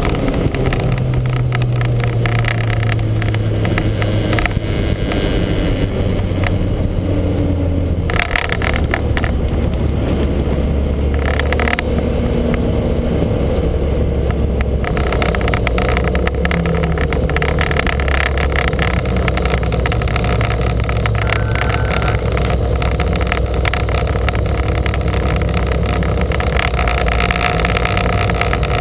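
Onboard sound of a Lancia Montecarlo race car's four-cylinder engine running hard on track. The note falls over the first few seconds, drops lower and duller about eight seconds in, then carries on steadily from about fifteen seconds.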